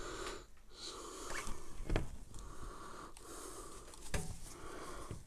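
A man breathing heavily and wheezily close to the microphone, breath after breath about once a second, with two short knocks from the plastic headset being handled, about two seconds in and near the end.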